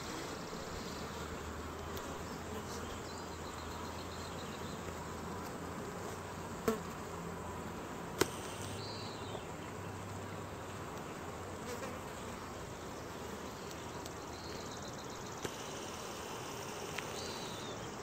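Honeybees buzzing at a hive entrance as they fly in and out, a steady hum. A few short high chirps come through now and then, and two sharp clicks a second and a half apart near the middle stand out as the loudest sounds.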